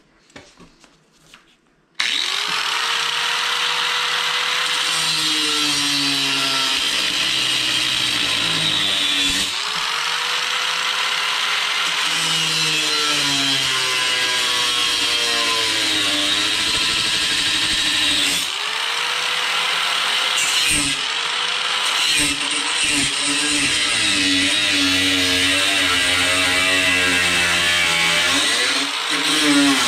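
Angle grinder with a cut-off wheel starting up about two seconds in and cutting the snowmobile's aluminum tunnel. The motor's pitch sags as the wheel bites into the metal and rises again as it frees, over a steady high hiss. The tool briefly stops and spins back up a couple of times.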